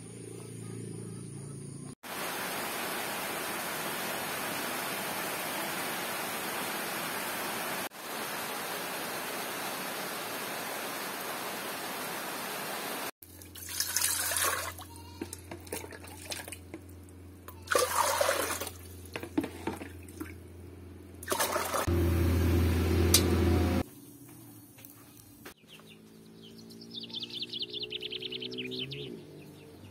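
Steady hiss of rain for about ten seconds, then water poured from a plastic basin into a large metal pot in uneven splashing gushes, with a loud low hum for about two seconds. Near the end a rooster crows.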